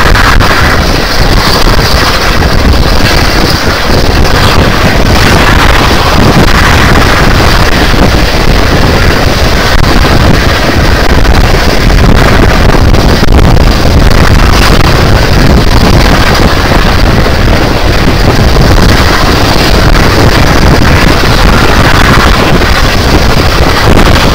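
Loud, steady wind buffeting the microphone held out of a moving heritage train's carriage window, over the rumble of the train running along the line.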